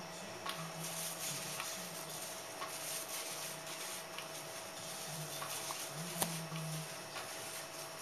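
Small motor of a battery-powered cat toy running under its fabric skirt, a steady whir with a low hum that comes and goes, plus scattered light clicks and rustles of the fabric. One sharper click comes about six seconds in.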